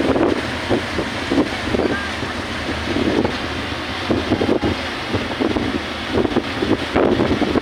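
Wind buffeting the microphone in irregular gusts on a moving ferry, over the steady low rumble of the ferry and the water churning in its wake.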